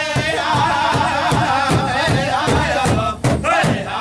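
Powwow drum group singing together over a steady beat on a shared big drum, about three beats a second. Near the end there is a short break, then harder beats.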